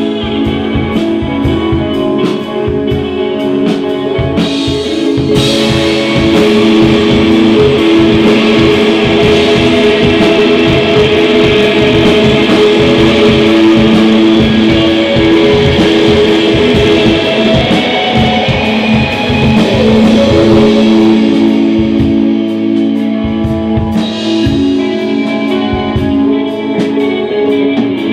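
Rock band playing live: two electric guitars over a drum kit. From about five seconds in, the playing gets louder and fuller with cymbals crashing, then eases back near the end.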